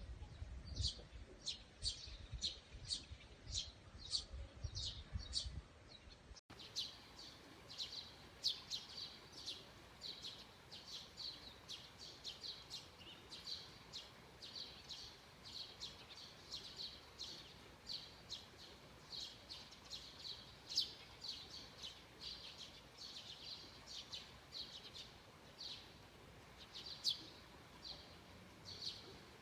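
Songbirds chirping, with short high chirps repeating about once or twice a second throughout. A low rumble lies under the first few seconds, then stops abruptly.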